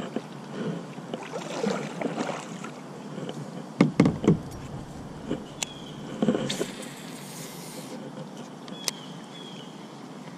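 Handling noise in a canoe: scattered knocks and clicks of a fishing rod, baitcasting reel and paddle against the hull, over a steady background hiss, with a brief higher hiss about six and a half seconds in.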